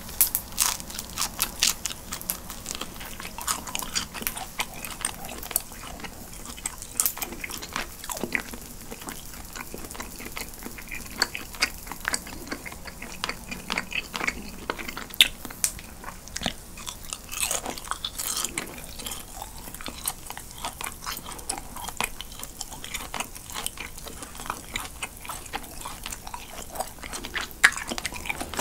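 Close-miked chewing of a warm piece of pan-grilled cheese. It comes as a continuous, irregular run of small wet clicks and crunching bites.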